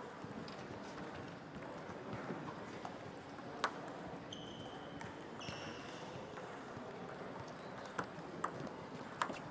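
Table tennis hall ambience: a steady murmur with scattered clicks of celluloid balls on tables and bats, a few sharp ball taps close by near the end. Two brief high squeaks come in the middle.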